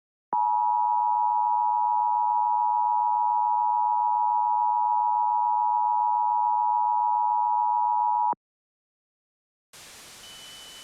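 Emergency Alert System attention signal: a steady, piercing two-tone beep held for about eight seconds, starting and stopping abruptly. A faint static hiss comes in near the end.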